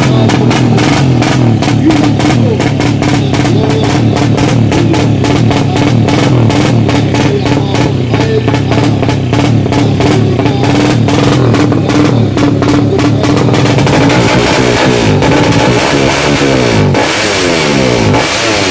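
Background rock music with drums and guitar and a steady beat. In the last few seconds a motorcycle engine revs up in repeated rising sweeps.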